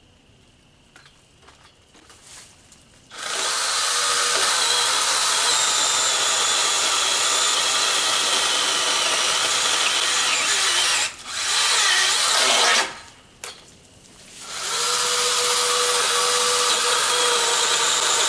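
Battery-powered mini chainsaw with a 6-inch bar and a brushless motor running and cutting into a tree limb. It starts about three seconds in and runs in three spells: a long cut, a short burst, and after a brief pause another steady run.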